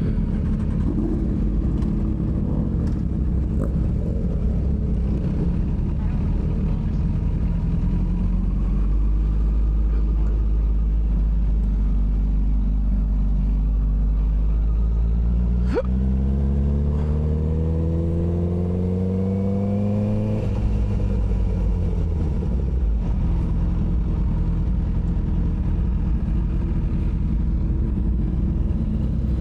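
Honda CBR sport motorcycle engine running under way, with wind noise on the microphone. About halfway through the revs climb steadily for several seconds, then drop suddenly as it shifts up, and it settles back to a steady cruise.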